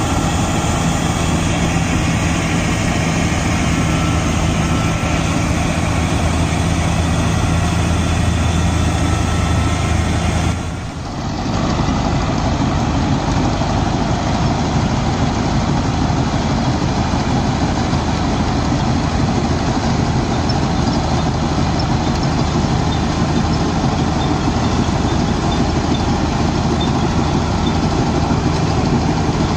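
Tractor-mounted combine harvester running steadily, driven by a Mahindra Arjun Novo 605 DI tractor's diesel engine. There is a brief dip in level about eleven seconds in.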